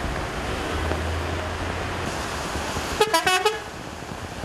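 Steady hiss of heavy rain on wet pavement. About three seconds in, a vehicle horn gives a quick burst of several short toots.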